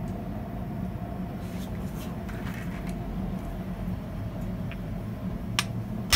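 Steady low hum of the workshop, with a few light metallic clicks as a glowing 8mm bar is slid into the hole of a rotary hot shear, and a sharp metal strike right at the end as the shear is hit.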